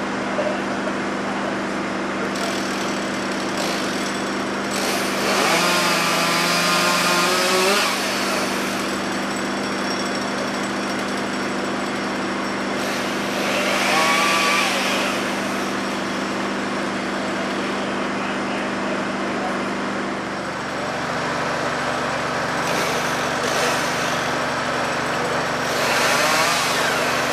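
Chainsaw cutting the branches of a snow-laden fallen tree, rising under load in three longer spells, about 5, 13 and 26 seconds in. Under it runs the steady drone of the turntable ladder truck's engine.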